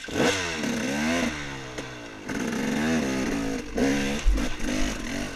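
Off-road dirt bike engine revving up and down again and again as the throttle is worked, cutting in suddenly at the start.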